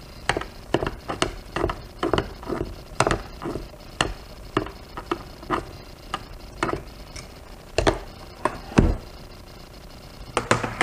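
Irregular light clicks and taps, about two a second, from a motorcycle throttle body being handled in a plastic tub while its idle adjustment screw is unthreaded by hand. A duller knock comes a little before the end.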